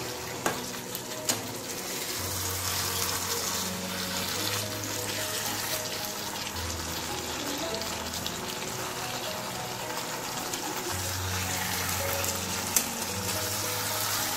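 Chicken curry with onion and capsicum sizzling steadily in a frying pan while it is stirred with a metal spatula, with a few sharp clicks of the spatula on the pan.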